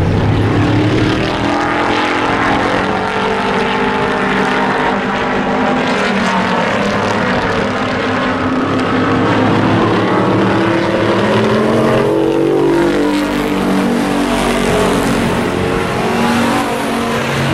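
Engines of several hobby-class pickup race trucks running hard together around a paved oval, their pitches rising and falling and crossing as the trucks speed up and back off.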